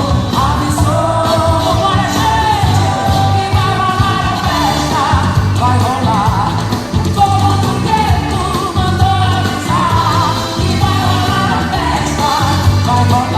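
Pop song with a singer over a steady beat, played as dance music.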